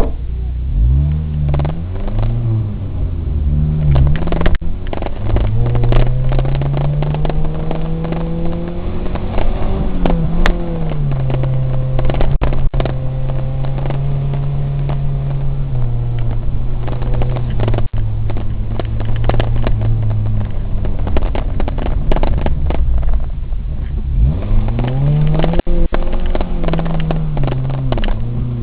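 Suzuki Samurai off-roader's engine pulling over rough ground, its pitch rising and dropping sharply several times as it revs up and shifts gear, and holding steady in between. Frequent short knocks and rattles run through it as the vehicle jolts over bumps.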